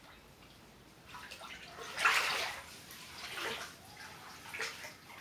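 Floodwater splashing and sloshing in a few separate surges, the loudest about two seconds in.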